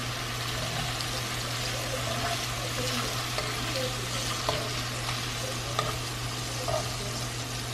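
Shrimp sizzling steadily in hot olive oil in a frying pan, with a few light clicks from about halfway through as metal tongs turn them over against the pan.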